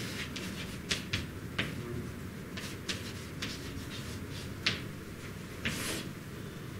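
Chalk writing on a chalkboard: a string of short taps and scratchy strokes, with a longer scrape just before the end.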